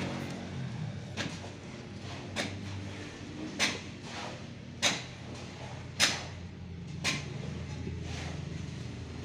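Six sharp knocks, evenly spaced a little over a second apart, over a steady low machine hum.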